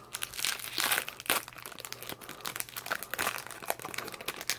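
Plastic Yu-Gi-Oh booster pack wrapper crinkling and tearing as it is torn open by hand, a run of irregular crackles.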